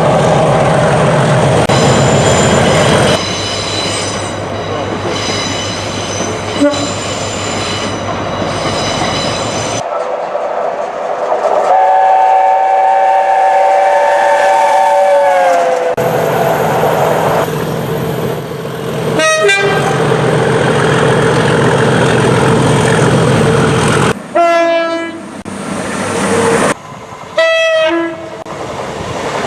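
A series of train horns sounded by passing trains over their running noise. One long multi-tone horn drops in pitch near its end, and there are short blasts later on.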